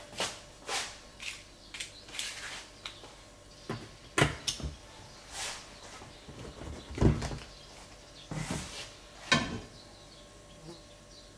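Scattered knocks, light clatters and rustles of things being handled around a gas hob and a nonstick frying pan, with the louder knocks about four, seven and nine seconds in.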